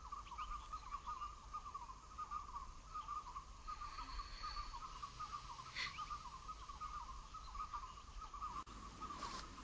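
Steady high chirring of jungle wildlife, a continuous chorus of rapid calls that cuts off abruptly near the end, with one brief higher chirp about halfway through.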